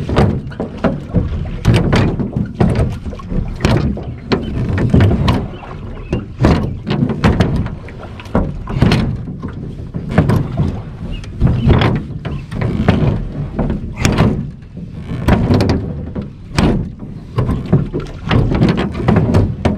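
Rowing an aluminium jon boat with wooden oars: a run of knocks and clunks from the oars working in their metal oarlocks, repeating every second or so, stroke after stroke.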